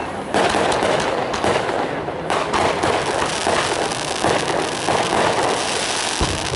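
Aerial fireworks going off in a rapid, unbroken run of overlapping booms and crackling bursts.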